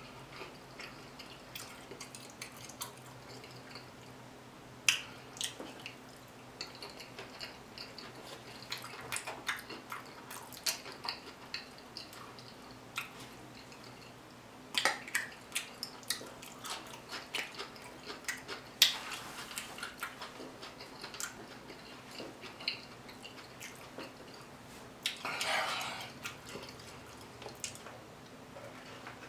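Close-miked mouth sounds of someone chewing sushi dipped in a creamy sauce: scattered sharp, wet clicks and smacks, over a faint steady hum. About three seconds before the end, a brief louder slurp.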